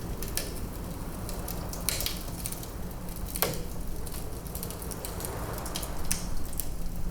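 Wood fire crackling in a fireplace: a steady low rumble with a handful of sharp pops and snaps scattered through it.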